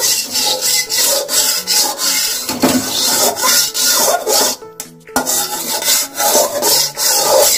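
Metal slotted spatula scraping back and forth over the inside of a light aluminium kadhai, spreading a thin film of oil: quick rasping strokes with a short pause about five seconds in.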